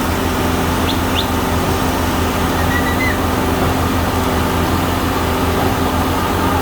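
An engine running steadily at a constant speed, a continuous low drone, with a few faint high chirps about one and three seconds in.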